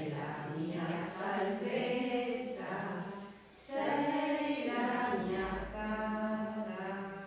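A group of nuns chanting a psalm together, unaccompanied women's voices. It comes in two sung phrases with a short pause about halfway through.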